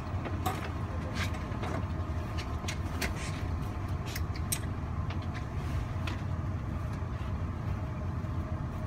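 Cabin noise inside a TEMU2000 Puyuma electric tilting train while it runs: a steady low rumble, with scattered light clicks and rattles through it.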